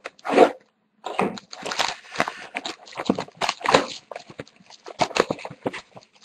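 Clear plastic shrink wrap being torn and crumpled off a sealed trading-card box by hand: irregular crinkling and crackling, a short burst and then a longer run from about a second in.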